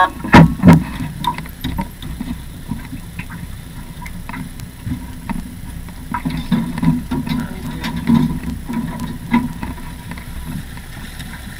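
Water slapping and knocking against a small boat's hull, over a low, uneven rumble that surges now and then; two loud knocks come about half a second in.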